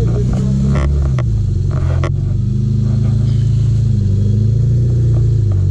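Engine of a small 4x4 working at low revs as it crawls up a rock ledge, its pitch rising and falling with the throttle. A few sharp knocks come in the first two seconds.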